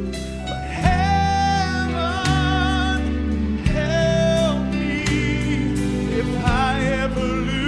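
A man singing a gospel song into a microphone, holding long notes with vibrato over a sustained instrumental backing whose chords change every second or so.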